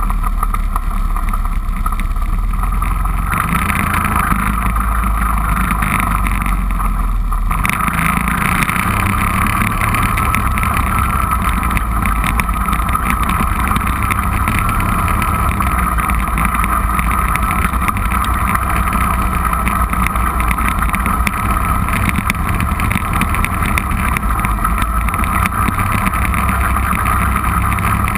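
ATV engine running steadily while riding under way, its note shifting about three seconds in and again around seven seconds.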